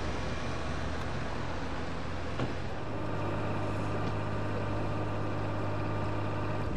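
F-16 fighter jet engines running steadily: a low rumble with faint steady whining tones over it. The low hum grows a little stronger about three seconds in.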